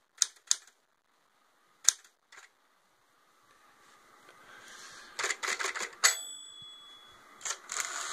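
Smith Corona Super Sterling typewriter being typed on. A few single keystrokes come in the first couple of seconds, then a quick run of type-bar strikes about five seconds in. The end-of-line bell dings once about six seconds in, warning that the carriage is near the right margin, and a few more keystrokes follow near the end.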